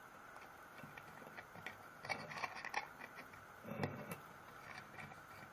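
Faint metallic clicks and light scraping as a stainless steel screw is turned by hand in a pressure cooker lid, with a few slightly louder taps about two and four seconds in.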